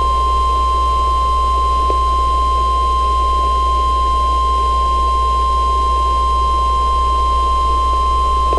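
NOAA Weather Radio 1050 Hz warning alarm tone: one loud, steady pure tone that cuts off abruptly near the end. It signals that a warning message follows, in this case a severe thunderstorm warning. Beneath it are a low hum and light static from the radio reception.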